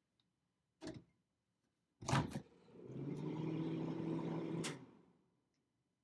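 A click, then a loud thunk as the microwave door is shut, then the GE Spacemaker XL1400 over-the-range microwave starts up with a steady electrical hum for about two seconds on its first test run after the magnetron was replaced. The hum stops with a click near the end.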